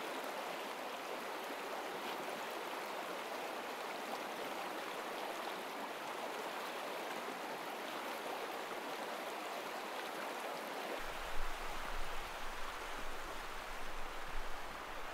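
A fast-flowing stream rushing, a steady even rush of water. About eleven seconds in the sound changes abruptly: a low rumble and uneven knocks come in over the now fainter water.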